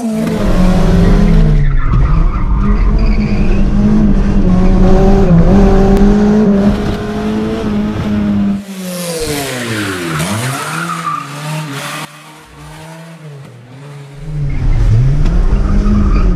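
Car engine revving hard, its pitch repeatedly climbing and then dropping away and rising again, over a heavy rumble, with a stretch of tyre squeal about halfway through.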